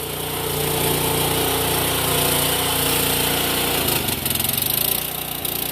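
Engine of a mini stand-on track loader running steadily; about four seconds in the note drops and turns into a fast, even pulsing as it slows toward idle.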